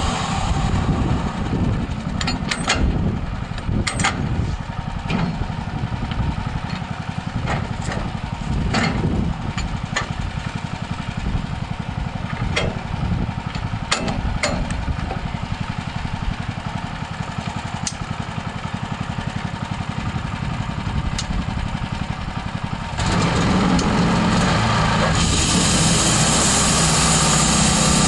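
13 HP Honda engine of a band sawmill running at low speed, with scattered short clicks and knocks. Near the end it speeds up and gets louder, and a steady high hiss joins soon after.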